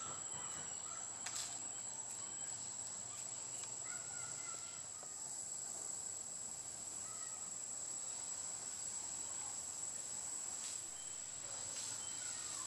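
Insects buzzing at one steady high pitch, with a few short chirps now and then over the top.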